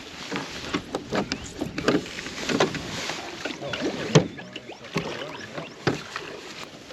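Irregular knocks, clatters and splashes around a small boat on the water, with the loudest knock about four seconds in.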